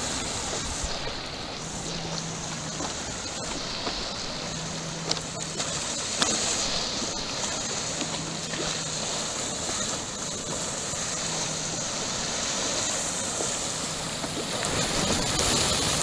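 Ocean water rushing and lapping around a stand-up paddleboard, with wind, as a steady wash of noise. A faint low hum comes and goes every few seconds.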